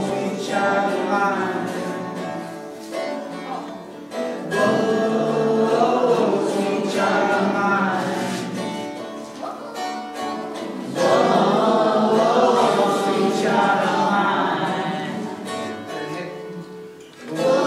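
Several voices singing together in long, slow phrases that rise and fall, with short breaks between phrases.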